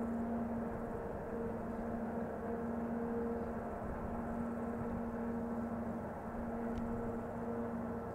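Diesel locomotive running steadily: an even drone with a constant two-note hum that wavers in and out.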